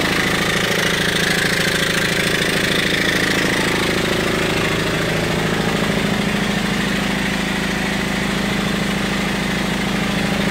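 Bumsted and Chandler high-speed steam engine running wide open at about 700–800 RPM, driving a Johnson & Phillips dynamo: a steady, fast run of even beats.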